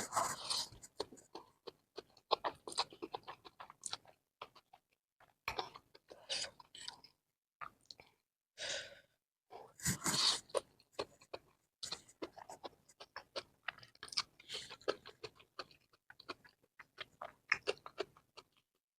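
A person chewing spicy stir-fried noodles close to the microphone: a steady run of short, irregular wet mouth clicks and chews, with a few longer, louder eating sounds, the loudest about ten seconds in.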